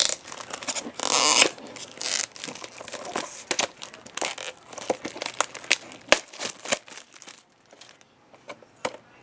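Plastic blind bag crinkling and tearing as it is pulled open by hand, with a loud rip about a second in followed by crackly handling.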